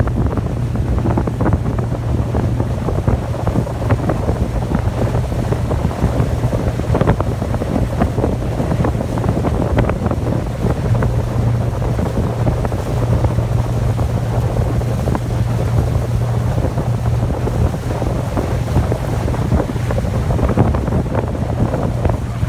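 50-horsepower outboard motor running steadily at speed while towing a waterskier, with wind buffeting the microphone and water rushing past the hull.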